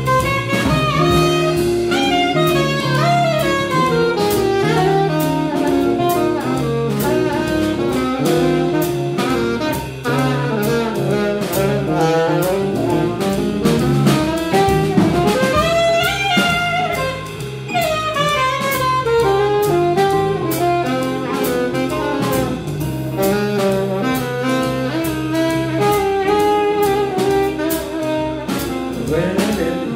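Live jazz band playing an instrumental passage with no vocal: a saxophone carries the melody over drum kit, guitar and low bass notes.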